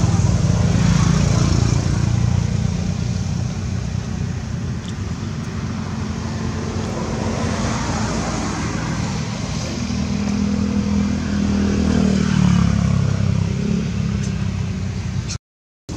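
Low, steady motor-vehicle rumble with an engine hum that grows louder about ten seconds in. It cuts out abruptly just before the end.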